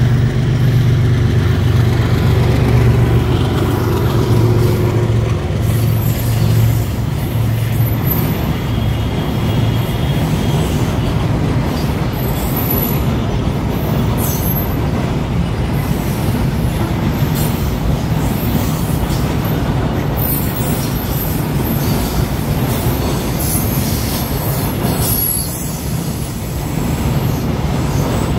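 WDG-4G diesel locomotive passing close with a steady deep engine drone for the first several seconds, which then gives way to a long rake of freight wagons rumbling and clattering by on the rails.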